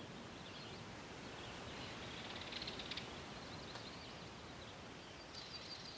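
Faint outdoor nature ambience: a steady background hiss with high, small chirps, a brief rapid trill a little past two seconds in and a few quick chirps near the end.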